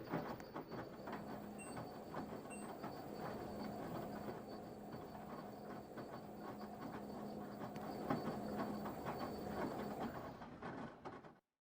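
Washing machine running a wash cycle: the drum turns with the laundry and water over a steady motor hum, with many small irregular knocks and clicks. The sound cuts off suddenly near the end.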